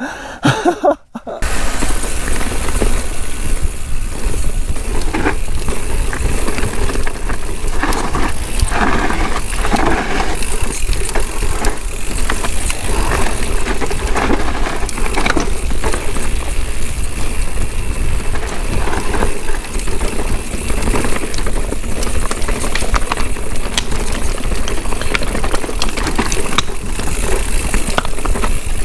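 Mountain bike descending a rough downhill trail, heard from a camera on the bike or rider: a steady rush of wind buffeting the microphone, with the tyres on dirt and the bike's chain and frame rattling over bumps. It sets in about a second in.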